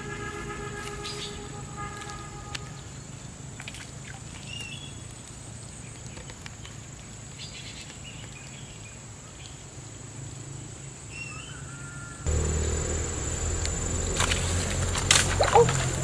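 Pondside ambience: a steady high insect drone with a few short bird chirps. About twelve seconds in, a louder low noise sets in abruptly, and near the end come a few sharp clicks.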